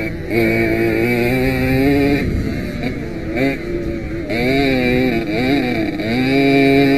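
Jawa 50 two-stroke single-cylinder moped engine at high revs under way, its pitch dropping and climbing back a few times between about two and six seconds in as the throttle is eased and opened again, then held high near the end.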